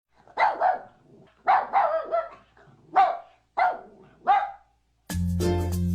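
A pet dog barking: several short barks, some in quick pairs. Chiming music starts near the end.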